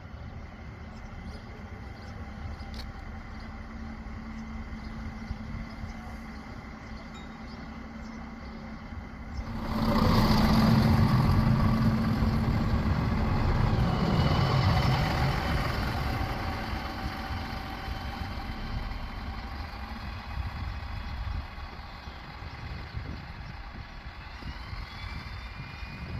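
Class 650 diesel railcar's engine running at a steady low idle, then about ten seconds in its engines open up sharply into a loud, full diesel run that dies away gradually over the next several seconds. A few faint high thin tones sound near the end.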